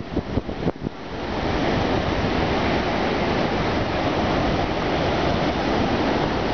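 Steady rush of ocean surf and wind on a beach, with wind buffeting the microphone unevenly for about the first second before it settles into an even rush.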